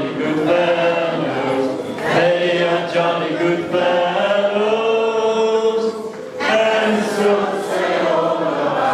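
A group of voices singing together unaccompanied, holding long notes, with a short break about six seconds in before the singing resumes.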